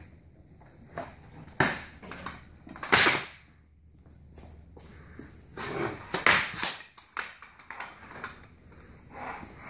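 Metal poles and hinges of a NAR Talon 90C folding field litter clanking and clicking as it is unfolded and its hinges are stepped on to lock them. There are separate sharp knocks: the loudest about three seconds in, and a quick cluster around the middle.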